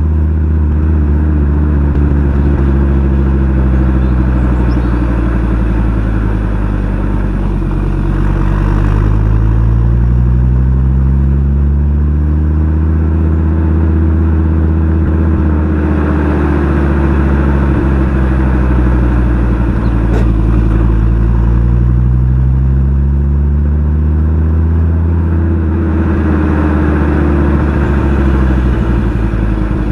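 Exhaust of a Fiat Coupe 20v turbo's turbocharged inline five-cylinder engine running from cold, its pitch rising and falling gently and repeatedly as the revs change.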